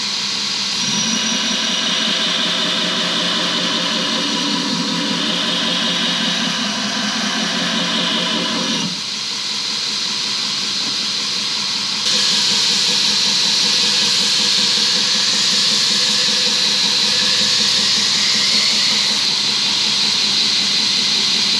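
Belt grinder running with an axe bit held against the abrasive belt to sharpen its edge: a steady grinding hiss. The sound changes abruptly about nine seconds in and gets louder about twelve seconds in.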